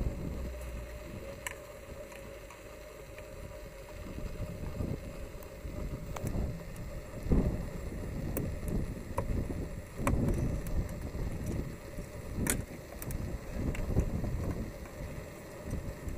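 Scattered sharp clicks and taps of a screwdriver working at the plastic injector wiring harness and connectors on the fuel rail of an Opel Corsa engine. They sound over an uneven low rumble of wind buffeting the microphone.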